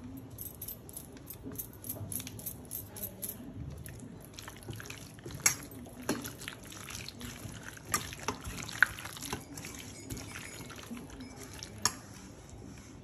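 Raw mutton pieces being mixed through a wet yogurt-and-spice marinade: a run of quick squelching, sticky sounds, densest in the first few seconds, with a few sharper clicks scattered through.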